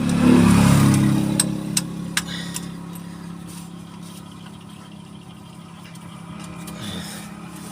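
A heavy machine's engine running, louder for the first second or two and then settling to a steady idle, with a few sharp clicks about one and a half to two and a half seconds in.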